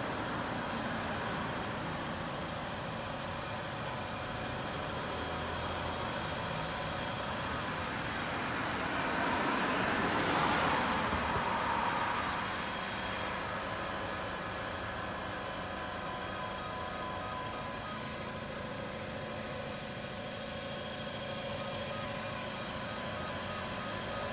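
Car engine idling steadily, with a broader vehicle noise swelling up and fading away about ten seconds in.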